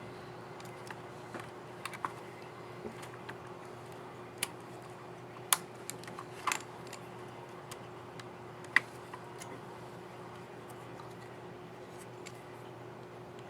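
Irregular small plastic clicks from a laptop key's keycap and scissor mechanism being fitted and pressed, the sharpest about five and a half, six and a half and nine seconds in, over a faint steady hum.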